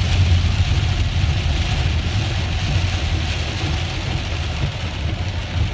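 Steady low rumble inside a moving car driving through heavy rain, with a steady hiss of rain and wet road over it.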